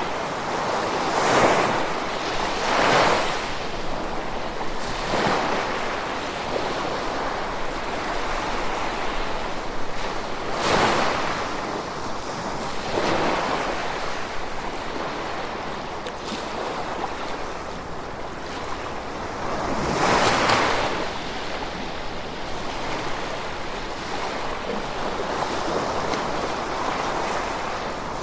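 Gentle ocean waves washing onto the shore, each one swelling and fading every few seconds over a steady hiss.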